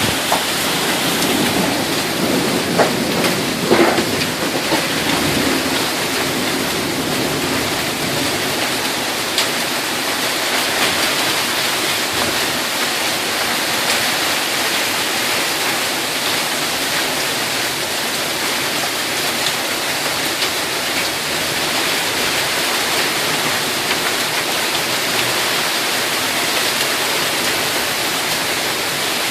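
Heavy rain pouring down in a severe thunderstorm, a loud, steady hiss, with a few sharp knocks about three to four seconds in.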